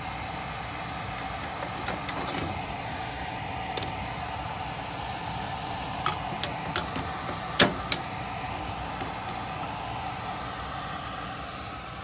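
Hands handling wiring and wire nuts in a furnace's sheet-metal junction box: a few sharp clicks and rattles, the loudest about seven and a half seconds in, over a steady background hum.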